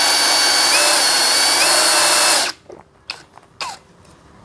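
DCK KDJZ03-13 cordless brushless drill in second gear, boring a 7 mm metal bit through a 10 mm steel plate: a loud steady high whine with a cutting hiss, its pitch stepping up twice. It stops abruptly about two and a half seconds in, followed by two short knocks.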